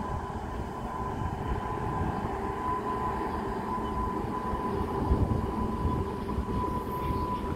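Freight train of open wagons rolling past, a steady low rumble of wheels on rail with a thin steady whine over it.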